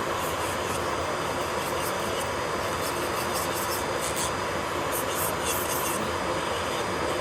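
Electric nail drill running with a steady whine, its bit grinding against the nail in short scratchy bursts.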